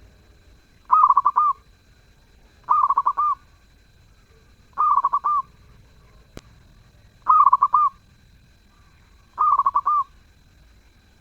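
Zebra dove (perkutut) cooing: five short phrases, each a quick run of notes, repeated at even intervals about two seconds apart.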